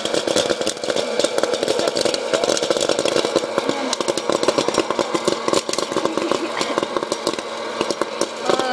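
Kettle popcorn machine popping a batch: a dense, rapid crackle of kernels bursting over the steady hum of the machine's motor.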